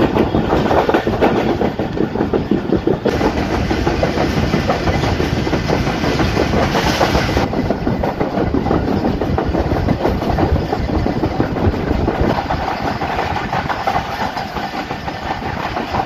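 Passenger train running at speed: wheels clattering over the rail joints under a steady rolling rumble, heard from on board, with the noise turning brighter and hissier for a few seconds in the middle.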